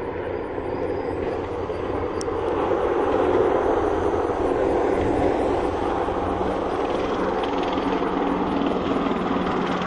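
Military helicopters flying overhead in formation, a steady rotor and engine noise that grows louder over the first few seconds and then holds.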